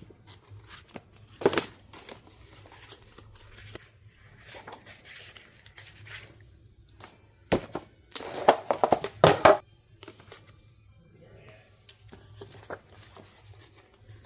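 Plastic wrap and paper album packaging crinkling and tearing as an album is unwrapped and opened by hand, in scattered rustles and clicks, loudest in a burst of handling a little past halfway.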